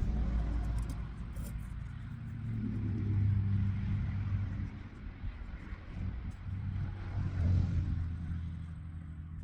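Low engine rumble of a motor vehicle, swelling twice: about three seconds in and again near the end.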